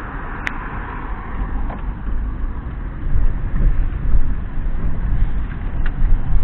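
Car driving, heard from inside the cabin: a steady low rumble of engine and tyres that grows louder from about three seconds in as the car picks up speed. A sharp click about half a second in.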